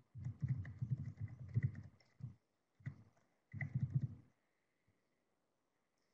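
Typing on a computer keyboard, heard through the presenter's microphone as quick key clicks over dull thumps, in a few short runs that stop about four seconds in.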